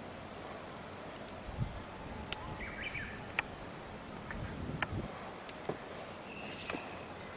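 Outdoor background hiss with a few short, high bird chirps and several sharp clicks scattered through.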